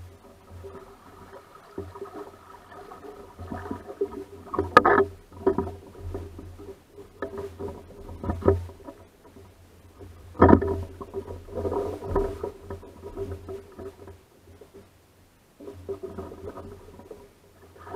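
Small sailing dinghy moored against a jetty, with water lapping at its hull and irregular knocks and clatter of the boat and its gear. There is a sharp knock about five seconds in and a heavy thump about ten seconds in, over a steady low rumble.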